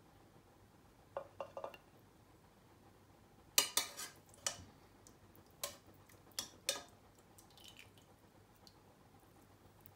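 Slotted stainless-steel serving spoon clinking against the pressure cooker pot and a plate while stew is served: a few soft taps about a second in, then a run of sharper clinks from about three and a half to seven seconds in.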